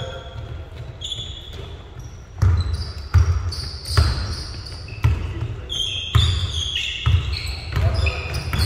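Basketball bouncing on a gym court, a deep thump roughly once a second from about two seconds in, mixed with short high squeaks of sneakers.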